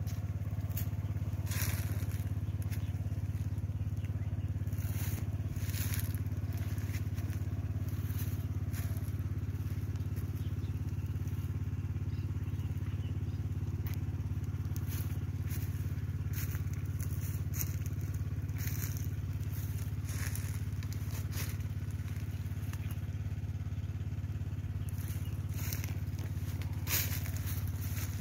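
A steady low mechanical drone, like a small engine running, with irregular crackling and rustling over it.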